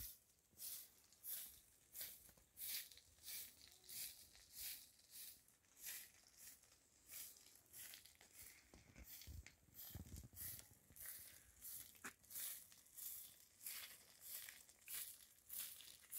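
Faint footsteps at a steady walking pace, about three steps every two seconds, each step a short scuffing crunch. A brief low rumble comes a little past halfway.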